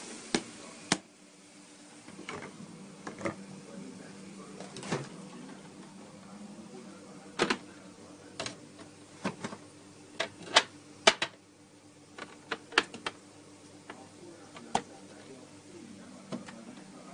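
Chopped onions and garlic frying in oil in a non-stick pan: a low sizzle broken by sharp, irregular pops and crackles as moisture spits in the hot oil.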